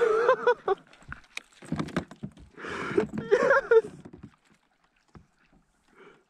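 Water splashing as a bass is scooped into a landing net and lifted out of the water, with clatter of the net and gear and short wordless shouts from the angler. It all stops about four seconds in.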